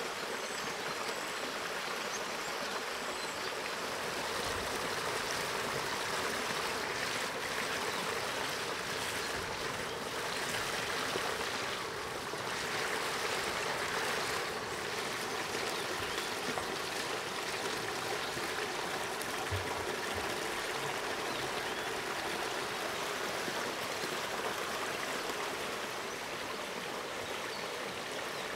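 Forest stream running over small cascades: a steady rush of flowing water.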